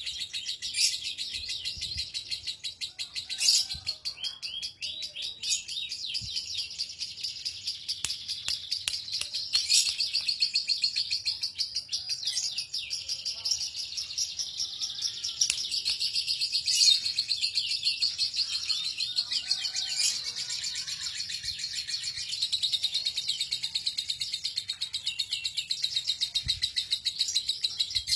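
Lovebird singing its long, unbroken 'ngekek' chatter: a fast, high-pitched run of short squeaky notes that goes on without a pause.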